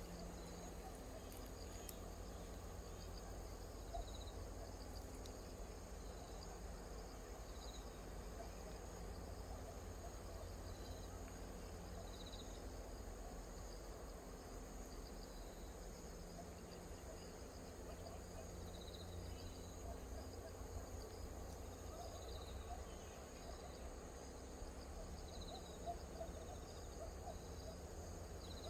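Faint outdoor background with an insect chirping briefly every second or few, over a low steady rumble.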